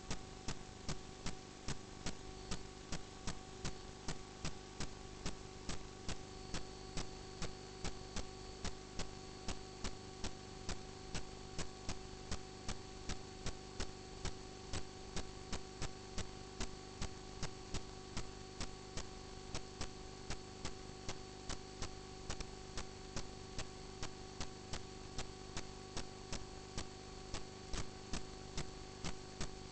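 Steady electrical hum with a sharp click repeating about twice a second, the background noise of a drain inspection camera's recording system.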